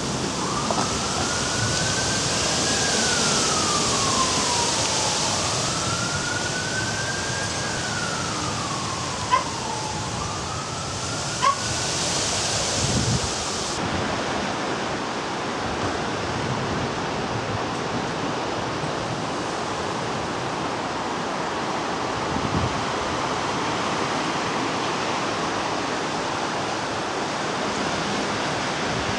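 Steady hiss of a hail and rain storm, with an emergency vehicle siren wailing up and down three times over the first twelve seconds. Two sharp knocks come near the middle, and a higher hiss in the storm noise cuts off suddenly a little before halfway.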